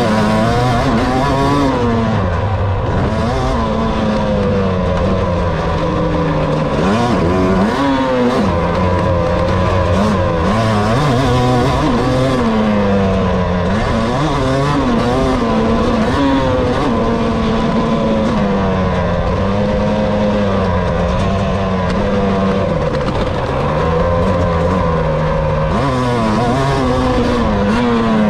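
2017 Husqvarna TC250 two-stroke motocross engine under hard riding on a dirt track. It revs up and drops back again and again, every second or two, through the lap.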